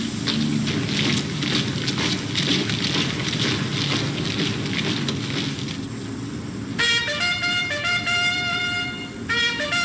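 Rhythmic tramping of marching feet over a steady hiss. About seven seconds in, a held, horn-like call of a few stepped notes comes in.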